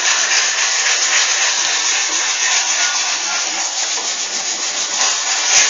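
Sandpaper rubbing steadily over body filler on a handmade sheet-steel front bumper, a continuous gritty hiss.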